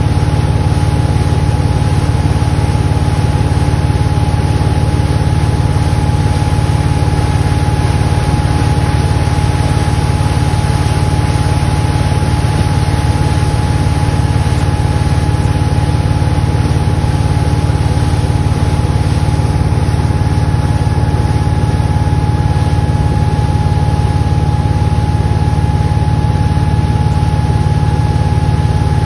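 Ski boat's engine running steadily at towing speed, heard from on board, with water rushing past the hull and wake.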